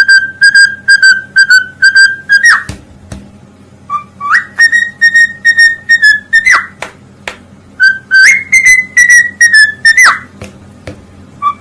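Whistling in three phrases of short repeated notes on one pitch, each phrase ending in a quick slide up and back down, with a few sharp clicks between the phrases.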